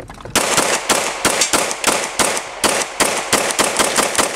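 Glock 22 pistol fitted with a 9mm conversion barrel, firing 9mm full metal jacket rounds in a fast, even string of about four to five shots a second, starting about half a second in.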